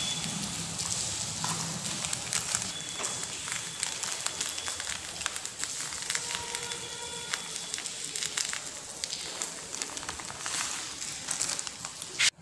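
Clear plastic bag crinkling and rustling as potassium permanganate crystals are poured out of it onto a concrete floor, with the granules crackling and pattering. A single sharp click just before the end.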